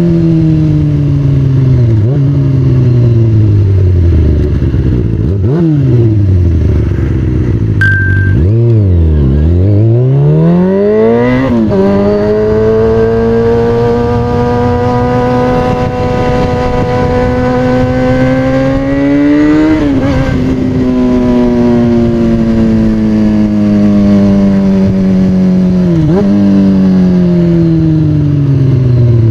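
2003 Kawasaki ZX-6R's 636 cc inline-four running through a loud aftermarket exhaust while riding. The engine note falls and dips low around eight to nine seconds, then climbs sharply and holds steady for several seconds. After that it falls slowly, with brief jumps in pitch twice, and cuts off abruptly at the end.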